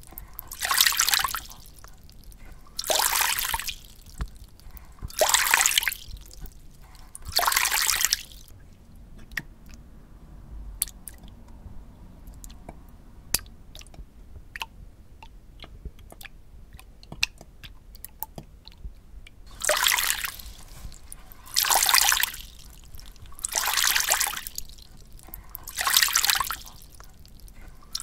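Water sounds: rhythmic rushes of splashing, trickling water about every two seconds, with a quieter stretch in the middle of scattered single drips.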